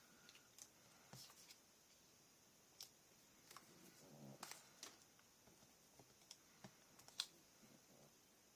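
Faint, scattered light clicks and taps of small paper embellishments being picked up and set down on a craft desk, with a soft rustle about halfway through.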